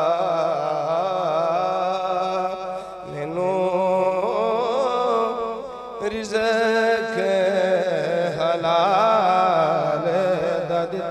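A man singing a devotional Punjabi kalam (rubai) unaccompanied by words-breaks, in long, drawn-out melismatic phrases with wavering pitch, amplified through a microphone. Three long phrases, with short breaths about three and six seconds in.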